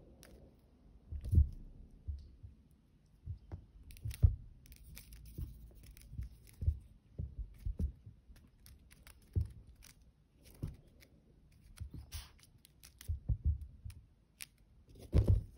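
Irregular soft thumps and scuffs of kittens pouncing and landing on a fabric sofa cushion while batting a wand toy, with occasional light clicks and rustles from the toy's dangling bundle. About a dozen knocks come at uneven intervals, with a quick cluster near the end.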